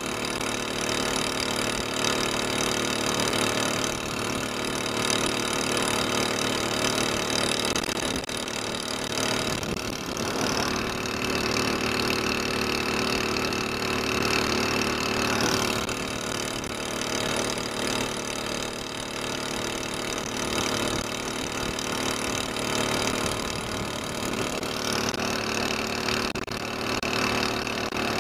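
Small single-cylinder four-stroke engine of a longtail mud motor, fitted with an aftermarket tailpipe exhaust, running steadily at speed while pushing a jon boat.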